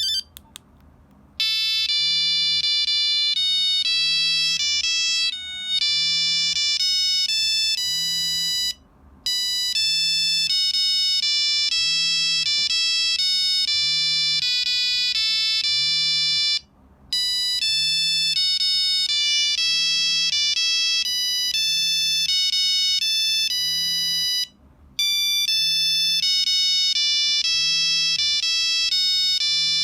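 Nokia 3395 mobile phone playing a monophonic ringtone: a melody of bright beeping notes that starts about a second in and repeats about every eight seconds, with a short pause between repeats.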